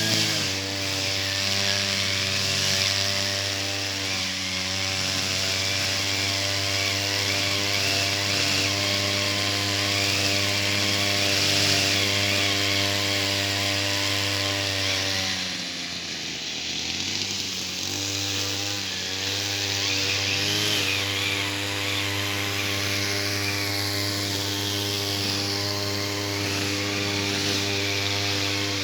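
Brush cutter (grass-cutting machine) engine running steadily at high speed, easing off for a couple of seconds about halfway through, then speeding back up.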